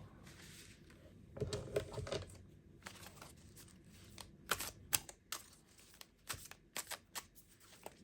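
Tarot cards being handled on a table: a brief rustle, then a run of sharp clicks and taps.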